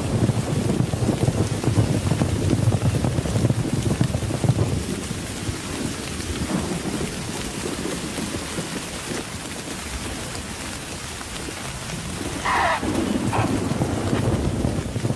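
Thunderstorm: heavy rain with deep thunder rumbling through the first few seconds, then easing to steady rain. A short animal call sounds near the end.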